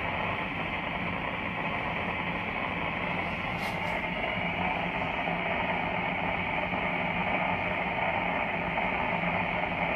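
Steady drone of a tanker's hydraulic cargo and ballast pump system while a pump is being run up. The middle of the sound grows louder from about four seconds in, as the pump's pressure is raised.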